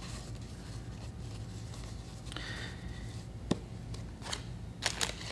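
Quiet hand work with soft clay coils: light rubbing and a few small sharp taps as the coils are rolled into pinwheels and set down on the board, over a low steady hum.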